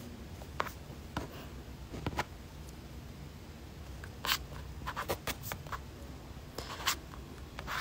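Quiet room with faint scattered clicks and soft rustles, a few in the first seconds and a closer cluster in the second half.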